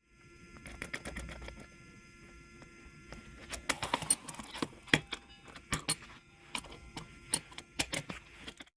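A padlock being handled and worked by hand: a string of sharp, irregular metallic clicks and rattles, growing louder and more frequent from about three and a half seconds in.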